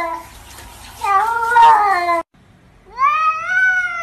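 Cats meowing in drawn-out, speech-like calls: a wavering meow about a second in, then after a short gap a longer meow that rises in pitch, like a cat saying 'I love you'.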